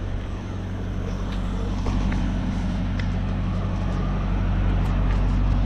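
A motor running steadily, a low even hum that slowly grows louder, with a few faint ticks over it.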